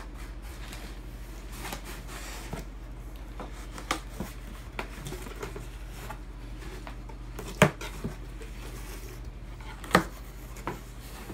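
A cardboard box being opened by hand: its lid flap is lifted and folded back, with scattered taps and knocks of hands on the cardboard and two louder thumps, one about two-thirds of the way through and one near the end.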